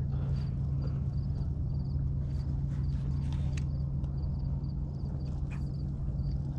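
A boat's motor running at a steady low hum, with scattered light clicks and knocks over it.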